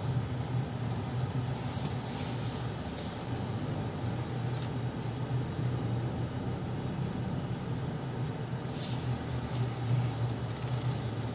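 Steady low hum of a Hyundai car's engine and tyres heard inside the cabin while driving, with a couple of brief hissing rushes about two seconds in and near nine seconds.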